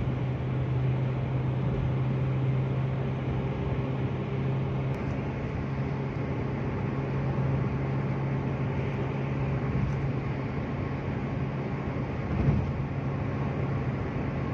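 Car interior noise at highway speed: a steady low engine and drivetrain hum over a constant rush of tyre and road noise. One brief knock about twelve seconds in.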